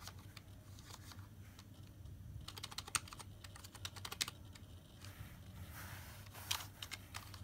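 Computer keyboard keys tapped in short runs of clicks, with a steady low hum underneath.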